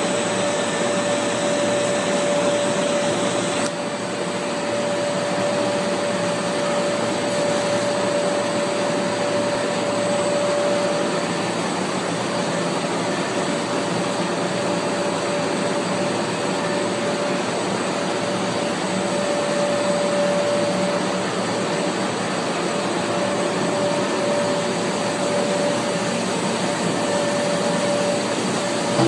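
Multi-layer extrusion coating and laminating machine running in production: a steady, loud machine rush with a constant mid-pitched whine.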